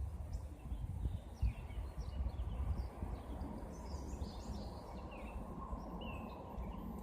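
Small birds calling repeatedly, short falling chirps about once a second, over a steady low outdoor background noise.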